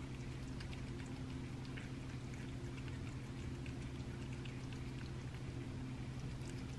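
Cat eating thawed raw rabbit nuggets from a paper plate: many small wet clicks and smacks of chewing and licking, over a steady low hum.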